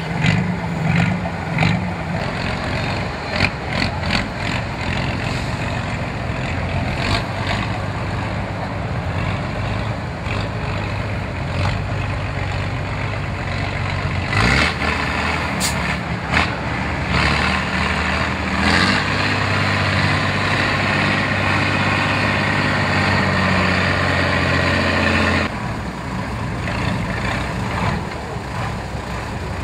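Unimog trial truck's diesel engine working hard through rough off-road sections, rising and falling in revs, with repeated knocks and clunks from the truck over the ruts. In the latter part the engine holds a steady note, then drops off near the end.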